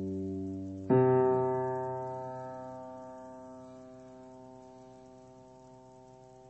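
Music: a sustained chord struck about a second in, cutting off the ringing chord before it, then slowly fading away.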